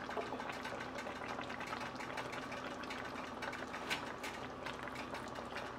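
Pot-roast braising sauce simmering in the pan, a steady bubbling crackle of small pops, with one sharper click about four seconds in.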